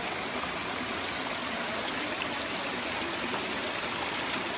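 Steady rush of water at a waterfall and its river.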